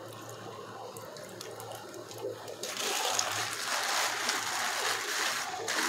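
Tap water running into a plastic bag of white cement powder. About three seconds in it becomes a louder steady rush of water, with crinkling of the plastic bag as it is handled over the sink.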